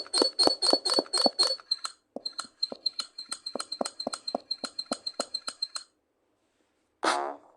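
Rapid, even clinking strikes with a ringing high tone, about five or six a second, breaking off briefly about two seconds in, then going on until near the end. A short, loud burst with several tones comes just before the end.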